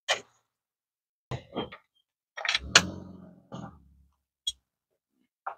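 Metal hand tools and sockets clinking and knocking during engine-bay work: a handful of short, sharp clanks, loudest in a cluster about two and a half to three seconds in.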